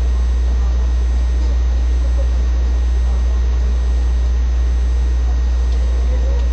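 Loud, steady low hum with an even hiss over it and a few faint thin high whines, unchanging; no speech.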